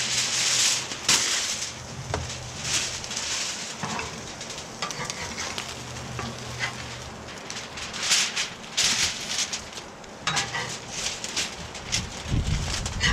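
Sockeye salmon fillets sizzling on a hot flattop griddle, with aluminium foil crinkling and a metal spatula scraping on the griddle as the fish is lifted onto the foil. The sizzle and crinkle come in irregular bursts, with a few sharp clicks.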